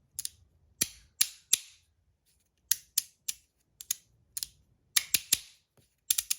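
3D-printed magnetic haptic slider, the three-click crunchy version, being slid back and forth: its plates snap into each detent with sharp, crunchy clicks. The clicks come irregularly, some in quick runs of two or three, well over a dozen in all.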